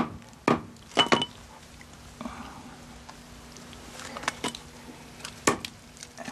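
Hatchet chopping down onto a wooden stump block, about four sharp chops in the first second or so, cutting the front feet off a squirrel; afterwards quieter handling with a few lighter knocks.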